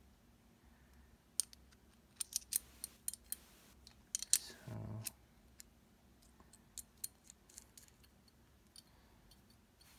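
Sharp little metal clicks and taps as fingers handle a metal fidget spinner and work at its center bearing cap, a quick run of them in the first half and scattered ones later.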